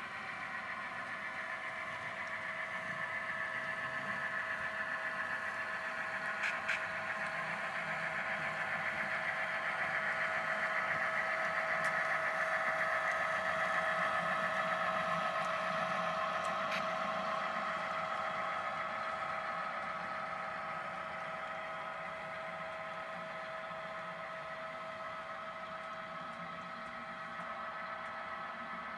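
Model railroad diesel locomotive running past with its train of freight cars: a steady hum with several whining tones that swells as it passes closest about halfway through, then fades as it moves away. A few faint clicks come along the way.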